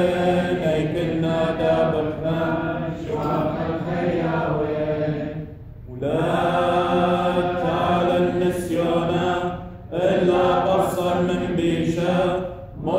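Male voices chanting the Syriac liturgy of the Assyrian Church of the East. The chant moves in long held phrases, with short pauses about six seconds and about ten seconds in, and again near the end.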